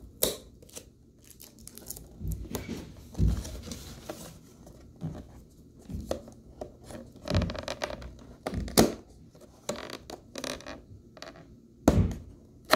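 A cardboard box being opened by hand: irregular scraping, rubbing and short tearing sounds of the paperboard flaps, with a few sharp clicks or taps, the loudest near the end.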